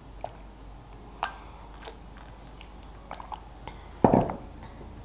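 Close-miked mouth sounds of sipping and swallowing tea: scattered small clicks, then one louder short burst about four seconds in.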